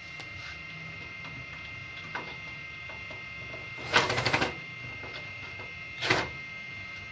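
Cordless drill-driver with a screwdriver bit running in two short rattling bursts on a geyser valve screw, the longer one about four seconds in and a brief one near six seconds, over a steady hum. The worn bit tip is slipping in the screw head.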